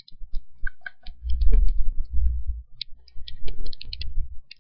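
Computer keyboard typing and mouse clicks, a scattered run of short sharp clicks. A low rumble, loudest from about one to two and a half seconds in, runs beneath them.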